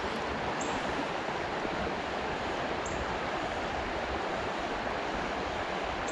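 River water rushing steadily over a riffle.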